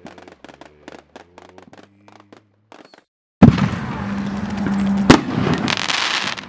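Consumer firework cake: faint scattered pops at first, then about three and a half seconds in a loud shot, followed by continuous loud bursting, with another sharp bang about five seconds in.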